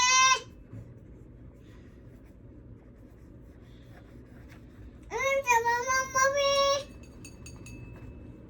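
A young child singing a few high, drawn-out notes, briefly at the start and again about five seconds in.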